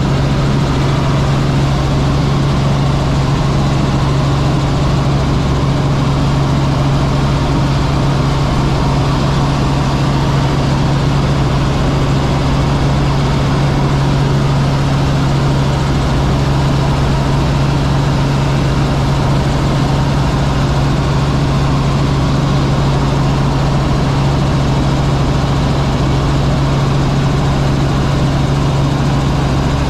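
Helicopter in cruise flight heard from inside the cabin: the engine and rotors make a steady, unchanging drone with a strong low hum.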